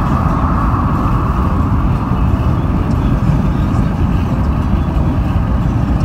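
Car driving at speed, heard from inside the cabin: a loud, steady low rumble of road and wind noise.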